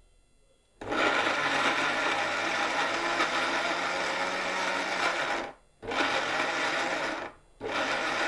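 Orpat 1200-watt mixer grinder starting up about a second in and running at full speed, grinding ginger and garlic with a little water into paste. It is switched off and straight back on twice near the end, brief pulses.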